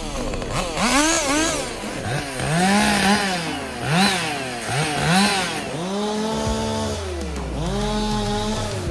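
Two-stroke chainsaw revved up and dropped back to idle again and again, as it clears brush around the base of a large tree. It gives short bursts early on and two longer, held revs in the second half.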